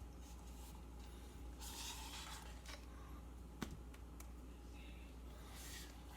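Faint scraping and squishing of a metal paint spatula spreading icing over a cake, with one light click a little past halfway, over a low steady hum.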